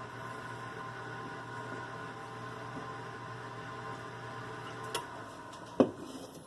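Whirlpool electric oven's convection fan running with a steady hum and a thin whine, stopping about five seconds in. A sharp click follows shortly after.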